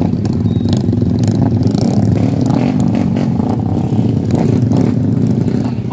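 Small motorcycle engines running steadily as a group rides along, heard from aboard one of the bikes.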